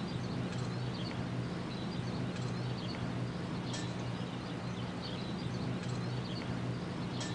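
Faint outdoor field-recording ambience: a steady low hum under even hiss, with faint short high chirps now and then.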